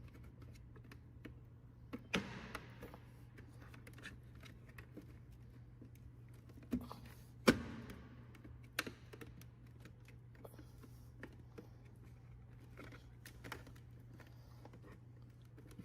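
Scattered plastic clicks and knocks as the fog-light trim cover is pressed into the Audi A3's front bumper and its clips snap in; the sharpest snap comes about halfway through. A steady low hum runs underneath.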